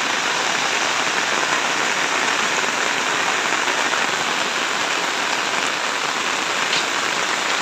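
Heavy rain falling steadily on a road and roadside plants: an even, unbroken hiss.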